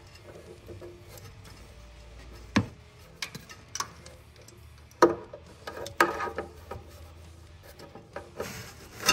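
Scattered sharp metallic clicks and taps of a socket extension being fitted onto the crank position sensor's hold-down bolt on the engine block, a handful of separate strikes over several seconds.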